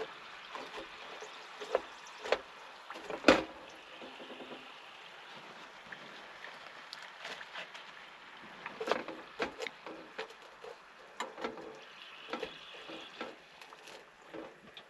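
Potato wedges frying in a pot of hot oil with a steady sizzle, broken by clinks and knocks of a metal spoon and fork against the pot and plate. The loudest knock comes about three seconds in.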